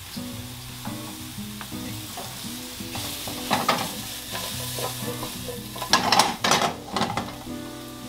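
King oyster and shiitake mushrooms sizzling in butter in a nonstick frying pan, stirred and tossed with a silicone spatula. Louder scrapes and tosses come about three and a half seconds in and again around six to seven seconds in, over a steady sizzle.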